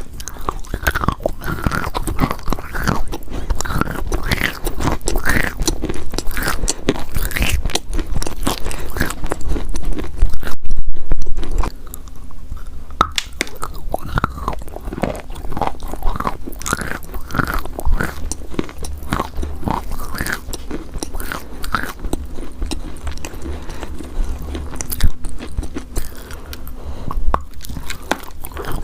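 Close-miked biting and chewing of crunchy chalk: a dense run of crisp crunches and crackles. About ten seconds in there is a louder, muffled stretch lasting about a second.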